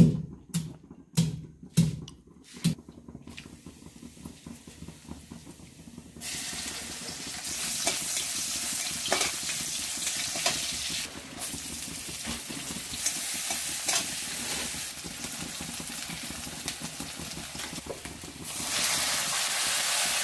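About five sharp knocks in the first three seconds from a stone pestle. From about six seconds, hot oil sizzles in an iron kadai as chopped aromatics fry and are stirred. The sizzling grows louder near the end as spinach paste goes into the hot oil.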